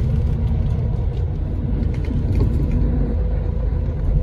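Steady low rumble of a moving bus heard from inside the passenger cabin: engine drone and road noise, with a faint steady hum over it.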